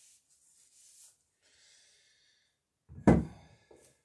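Faint rubbing as wax is worked onto a bucking iron. About three seconds in comes a loud, sudden sound, followed by a smaller one.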